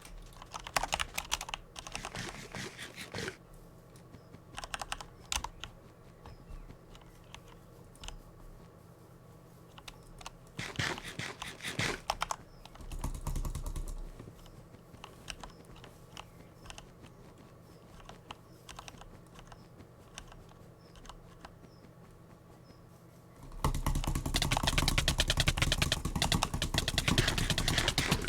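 Butterfly clicker fidget toy clicking: scattered single clicks and short runs of clicks, then, near the end, a much louder, fast continuous clatter of clicks.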